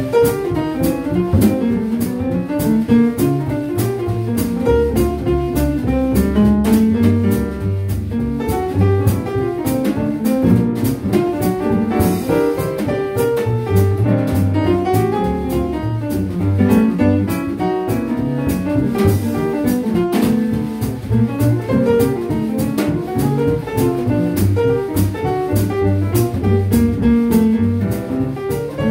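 Jazz piano trio playing live: piano lines over a plucked upright double bass and a drum kit with cymbals, swinging steadily throughout.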